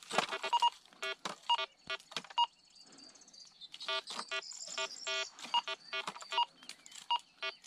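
Metal detector giving short, repeated electronic target beeps as its search coil is swept over a large rock, with a brief lull about two to three seconds in.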